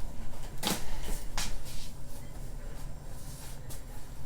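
Hands being wiped on a cloth, with two short rustles about a second in and a fainter one near the end.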